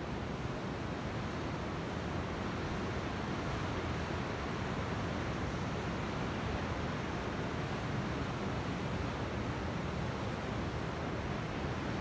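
Steady, even rush of ocean surf breaking out on the bay, with wind rumbling on the microphone.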